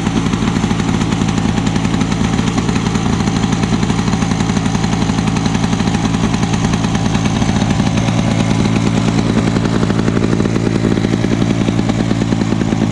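1991 Lawn-Boy M21BMRD M-Series two-stroke mower engine running steadily with a fast, even firing rhythm, on its first run after sitting since the fall; despite heavy smoke it runs really good.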